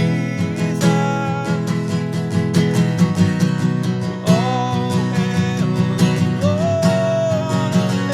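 Worship band music without singing: steadily strummed acoustic guitar over sustained chords, with a few long melody notes held above.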